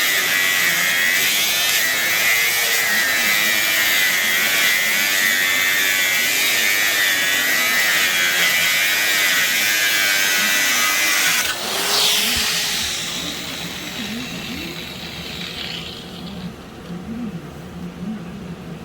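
Electric power tool running at speed with a steady high whine, switched off about twelve seconds in and winding down with a falling whine as it coasts to a stop.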